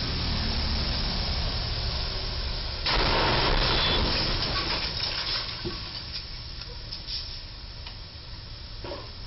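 A refrigerated box truck's top slams into the low railroad bridge's steel crash beam about three seconds in. The loud crash of metal lasts about a second, then trails off in scattered clatter over the next two seconds. Under it runs the steady hiss of traffic on the wet road.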